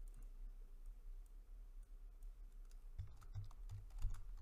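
Faint typing on a computer keyboard: a quick run of key clicks begins about three seconds in, over a low steady hum.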